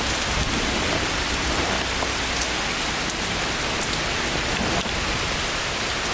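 Heavy thunderstorm rain falling steadily: an even rushing noise with scattered drop ticks.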